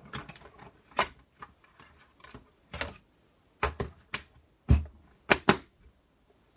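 A 3D embossing folder sandwiched between plates being run through a manual cutting and embossing machine, then handled: a string of sharp, irregular clicks and knocks, with a heavier thump past the middle.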